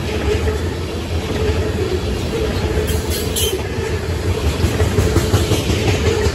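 Freight train of tank cars rolling past at close range: a steady rumble and clatter of steel wheels on the rails, with a brief high wheel squeal about three seconds in.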